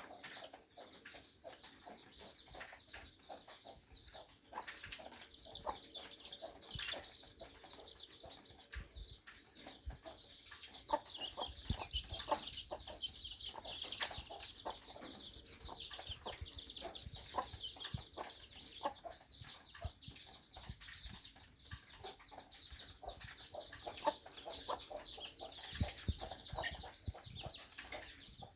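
Chickens clucking, over a dense high chirping that runs on without pause, with many short sharp clicks scattered through it.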